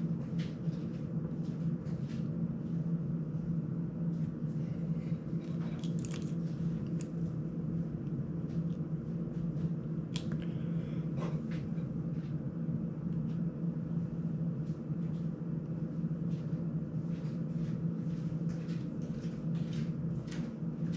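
A steady low hum runs throughout under scattered light clicks and taps of hands, tools and small parts being handled during soldering work on a small drone.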